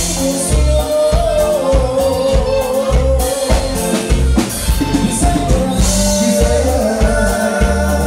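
A live dance band plays with singing, a steady bass and drum beat, and a held melody line.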